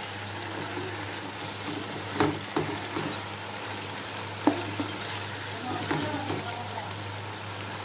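Chicken pieces shallow-frying in oil in a pot, a steady sizzle, with a few sharp knocks of a utensil against the pot a little over two seconds in and again about halfway through.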